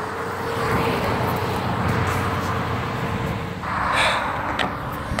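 Road traffic: a steady hiss of cars going by on a highway, with one louder swell about four seconds in as a vehicle passes close.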